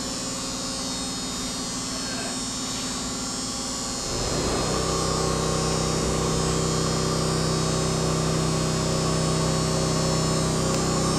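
Steady machinery hum made of several fixed tones. About four seconds in, a motor comes up and the hum turns louder and fuller, then holds steady.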